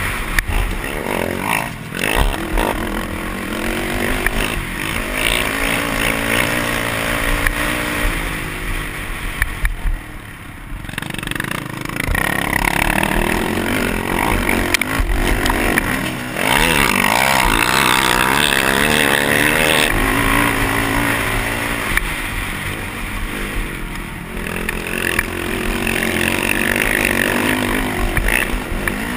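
Race quad's engine revving hard and backing off while ridden over a motocross track, its pitch rising and falling with the throttle. The level dips briefly about ten seconds in, when the engine comes off the throttle.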